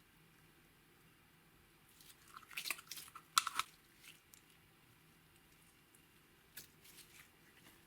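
Clear slime being squished and mixed, giving bursts of sticky crackles and clicks: a cluster about two to four seconds in, then a few more near the end.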